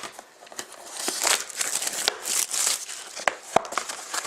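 Plastic wrapping on a trading-card box crinkling and tearing as it is opened by hand, with sharp crackles and rustles.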